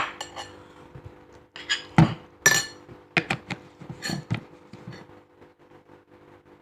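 A metal spoon clinking and knocking against a dish: a string of sharp, irregular taps that stops about five seconds in.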